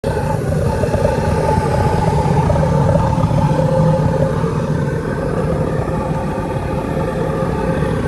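Gluhareff pressure jet engine running steadily: a loud, even rush of noise with a couple of steady tones over it.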